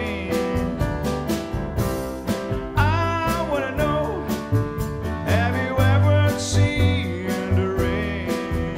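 Piano trio playing an instrumental passage of a rock song: acoustic piano over walking upright double bass and a drum kit keeping a steady beat on cymbals and snare. A couple of short wordless vocal slides come from the pianist about three and five seconds in.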